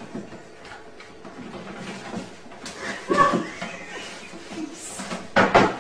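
Knocks and a clatter from a white plastic swing-lid kitchen bin. There is a short voiced cry about three seconds in, and the loudest knock comes near the end.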